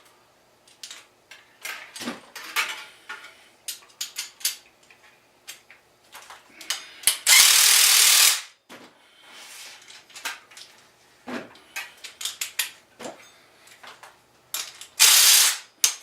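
Ratchet wrench tightening the rear sprocket's mounting bolts on a motorized bicycle wheel: scattered clicks as the handle is worked, with two loud bursts of fast ratcheting, one about halfway through and one near the end.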